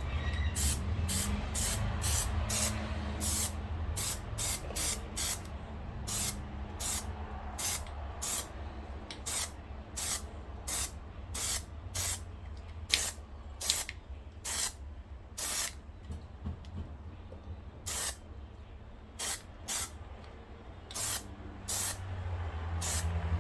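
Aerosol can of Plasti Dip spraying a coat onto a small plastic part in many short, quick hissing bursts, one to two a second, over a steady low hum.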